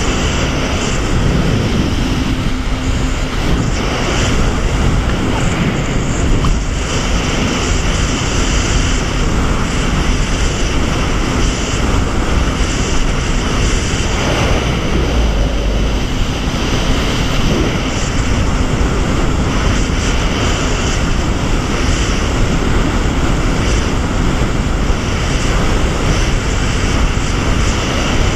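Jet ski running steadily at speed: continuous loud engine and water-jet noise mixed with the rush of spray churning in its wake.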